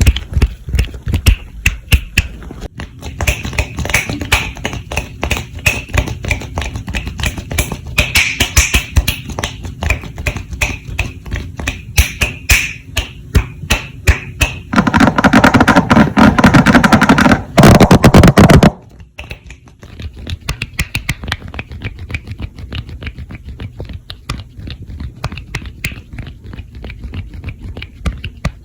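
Fast, close-miked ASMR hand and mouth sounds: a dense run of quick taps, clicks and snaps. About fifteen seconds in comes a louder, continuous stretch lasting nearly four seconds, then softer, sparser clicking.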